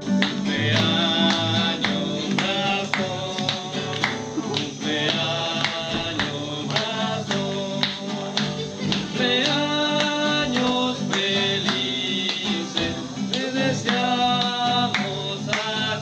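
Acoustic guitar strummed with a voice singing along.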